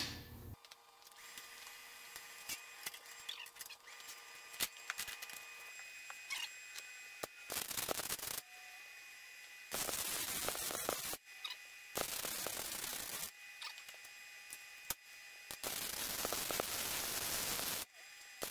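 Wire-feed (MIG-type) welder laying short welds on steel L-channel: four separate stretches of crackling arc, each lasting one to two seconds, beginning about seven seconds in, with only small clicks before.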